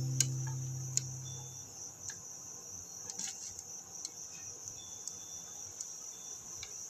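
A plucked guitar chord from the background music dying away over the first second and a half, leaving a faint, steady high-pitched trill with a few scattered soft clicks.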